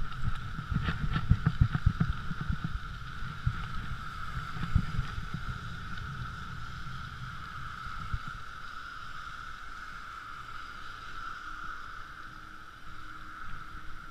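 Bicycle rolling over a snowy, rutted path, heard through a handlebar-mounted camera: bumps and knocks with a rumble, busiest in the first few seconds, then a steadier rolling noise, with a constant high hum underneath.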